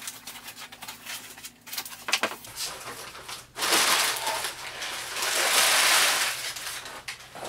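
A cardboard shipping box being opened: a few clicks and scrapes as the flaps are worked open, then crumpled brown kraft packing paper rustling loudly for about three seconds as it is pulled out of the box.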